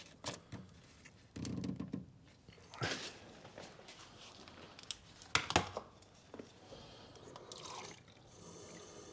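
Scattered clicks and knocks of the brake fluid reservoir cap being screwed back on and parts being handled, with a brief trickle of water being poured near the end to wash off spilled brake fluid.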